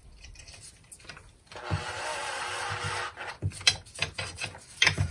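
A cordless drill-driver runs steadily for about a second and a half, driving in the screw that fastens a guard onto an angle grinder. Several handling clicks and knocks follow.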